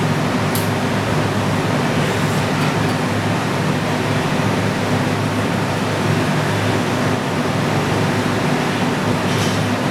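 Steady rushing air of a floor fan running, with a low motor hum and a couple of faint clicks.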